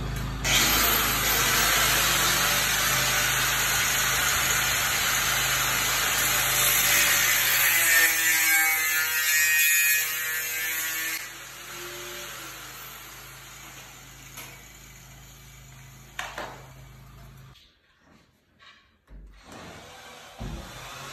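Angle grinder with a cutting disc running and cutting through a metal pipe for a wardrobe clothes rail: a loud, steady grinding rasp that winds down about ten to eleven seconds in. Quieter tool and handling sounds follow, with a few short bursts near the end.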